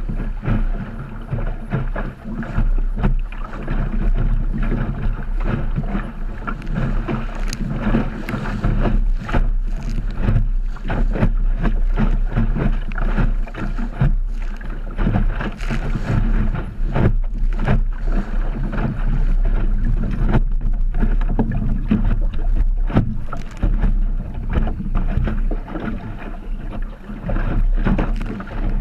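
Wind buffeting the microphone aboard a small Optimist sailing dinghy moving fast, with a low rumble and water slapping and splashing against the hull in frequent irregular knocks.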